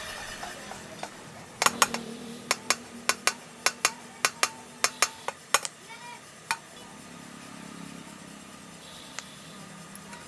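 About a dozen sharp metal-on-metal taps or clinks in quick, uneven succession over four seconds, then they stop, over a low steady hum.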